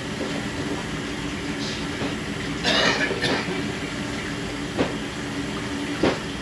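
Steady machine hum, with a short burst of hissing about three seconds in and two brief knocks near the end.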